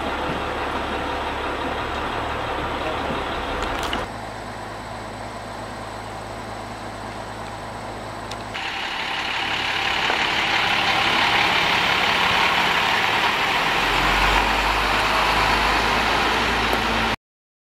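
A bus's engine running as the bus pulls past close by, growing louder over several seconds and deepening near the end before cutting off abruptly. Before it, a steady background sound, quieter after a sudden change about four seconds in.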